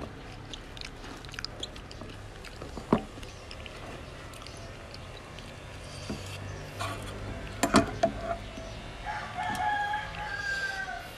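A rooster crows once, a long call of about two seconds near the end. A few sharp clicks and taps come earlier.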